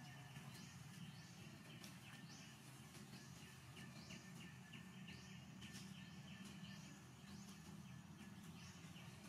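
Faint outdoor ambience over a steady low hum, with small high chirping calls repeating about once a second over a quicker, softer ticking.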